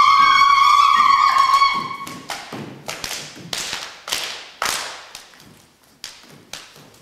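A long sung call from the performers, held on one note, breaks off about two seconds in. A run of irregular sharp hits from the dancers follows and fades away.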